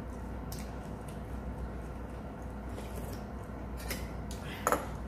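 Metal spoons and chopsticks clicking lightly against stainless steel bowls during a meal, with one louder, ringing clink near the end, over a steady low hum.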